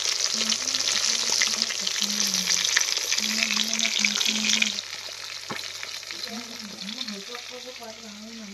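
A whole fish shallow-frying in hot oil in an aluminium kadai: a steady crackling sizzle that drops to a quieter level about halfway through.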